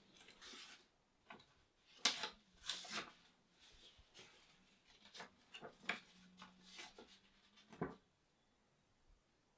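Paper envelope being opened and the letter inside pulled out and unfolded: a run of faint, crisp paper rustles and crackles that stops about eight seconds in.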